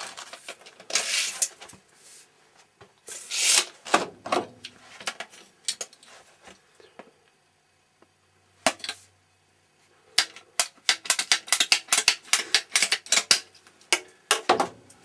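Handling noise as black pipe and fittings are worked on a geothermal heat pump: scraping and rustling at first, a single sharp click about nine seconds in, then a quick run of clicks and taps lasting about four seconds.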